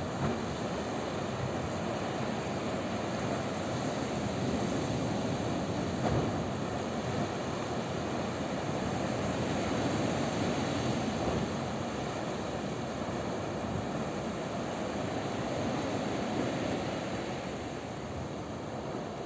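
Sea waves washing on the shore: a steady rush of surf that slowly rises and falls in loudness.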